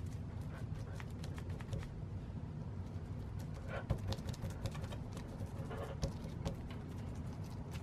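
A bristle brush dabbing epoxy resin into fiberglass cloth to wet it out, making soft, irregular taps and pats, over a low steady background rumble.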